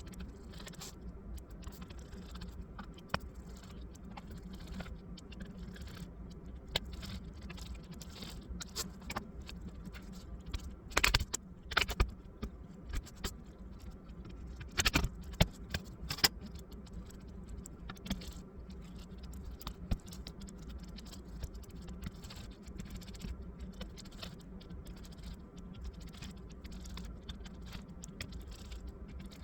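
Small clicks, taps and scrapes of laptop parts and tools being handled during disassembly, with louder clattering clusters about eleven and fifteen seconds in, over a steady low hum.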